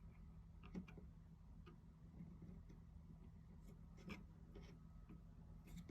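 Near silence with a steady low hum and a few faint, scattered clicks and taps: small handling noises of a 3D-printed plastic figure being pressed into place with poster putty.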